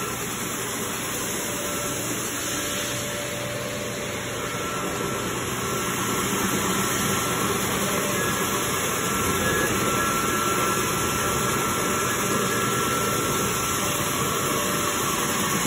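Tennant T16 ride-on floor scrubber running as it drives along, a steady whir of its scrub-brush and vacuum motors; a faint thin whine comes in about four seconds in.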